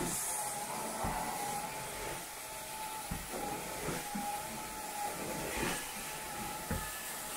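Carpet-cleaning extraction wand working the carpet: a steady rushing hiss of vacuum suction and water spray with a wavering whine, and three dull low thumps as the wand is worked across the floor.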